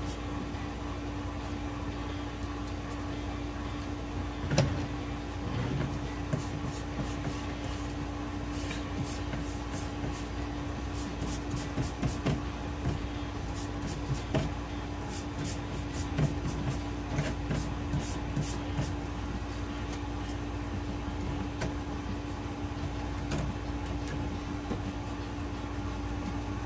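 Paint brushing on a board with small clicks and knocks as the board is handled on a table, the loudest a single thump about four and a half seconds in. A steady low hum runs underneath.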